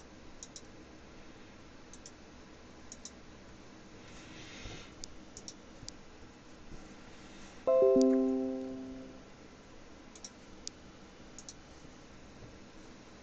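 Faint scattered clicks, and about eight seconds in a quick run of a few bell-like notes falling into a chord that rings and fades over about a second and a half.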